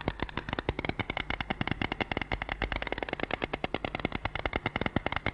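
White stork clattering its bill: a long, rapid, even run of wooden-sounding clacks, many to the second.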